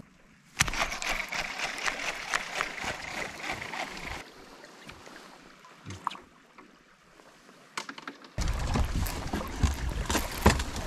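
Water and boat noise on a drift boat on a river. It starts suddenly under a second in, after a moment of silence, and goes quieter in the middle. From about eight seconds in it becomes louder, with a strong low end.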